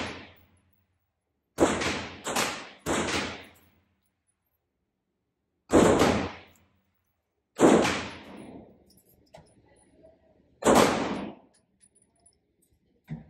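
Grand Power X-Calibur pistol firing six shots in an indoor range, each ringing off the walls: a quick string of three about a second and a half in, then three more spaced a few seconds apart.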